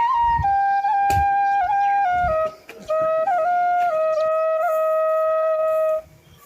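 Flute playing a slow melody of long held notes joined by small slides and turns, breaking off briefly about two and a half seconds in and again near the end.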